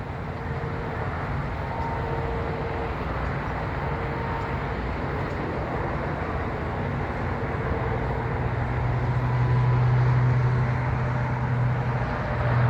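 Steady road traffic rumble, swelling to its loudest about eight to eleven seconds in as a heavy vehicle passes.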